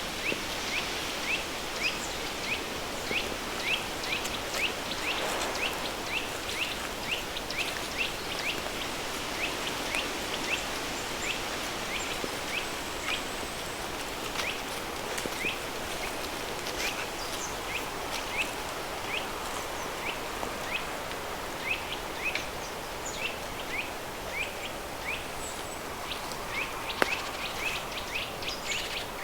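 Flowing river stream mixed with a steady pink-noise hiss, over which a high short chirp repeats about two to three times a second.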